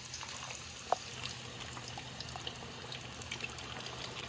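Freshly cut raw potato fries sizzling and bubbling in hot oil, with many small crackles as the water in the potatoes boils off. One sharp click about a second in.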